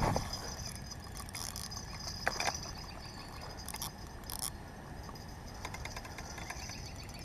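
A bump, then a few separate clicks and clinks of fishing rod and reel being handled, over the steady high chirring of crickets.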